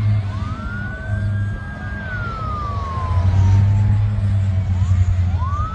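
Emergency vehicle siren wailing over a steady low rumble. It rises sharply soon after the start, holds high for about a second and a half, falls slowly over the next two seconds, and rises again near the end.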